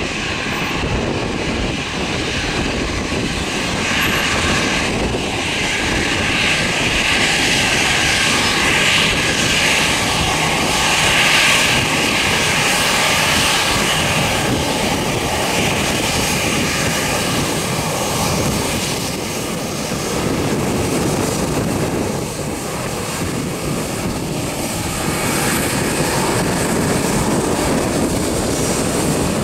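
Airbus A319 jet engines running as the airliner rolls past close by after landing, with a rushing whine that is loudest from about four to fifteen seconds in.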